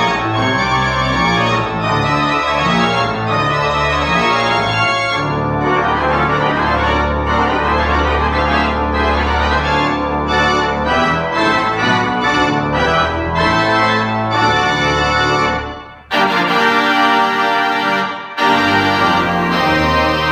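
Pipe organ playing loudly: dense chords over deep sustained bass notes, with quick-moving notes above. The sound breaks off briefly about sixteen seconds in and again a couple of seconds later, each time coming back in with a loud chord.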